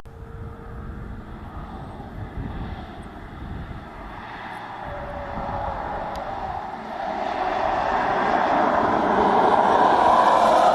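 A car approaching at speed along the track, its tyre and wind noise swelling into a steady rush that is loudest near the end as it passes.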